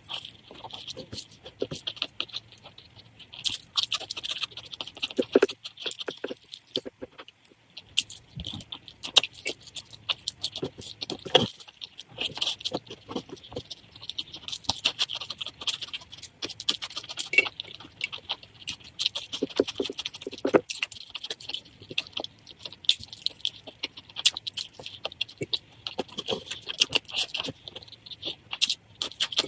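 Close-miked eating sounds: chewing rice and curry, with a continuous run of small wet clicks and smacks.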